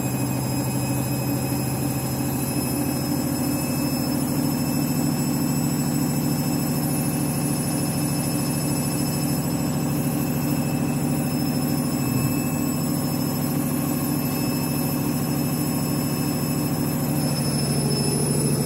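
Washing machine in its spin cycle, the drum turning at a steady speed with a constant motor hum and a high-pitched whine.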